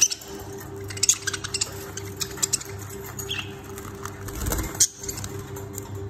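Caged budgerigars pecking and cracking seed, with many short sharp clicks and a few brief high chirps. A louder, fuller sound comes shortly before the end.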